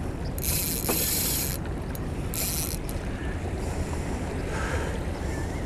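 Spinning reel and braided line whirring in two bursts, about a second long and then half a second, as the rod is cast and the reel is worked. Steady low wind and water noise runs underneath.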